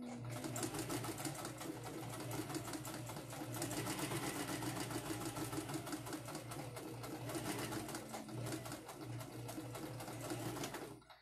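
Electric domestic sewing machine stitching a seam through fabric, a fast, steady run of needle strokes over the motor's hum that stops abruptly near the end.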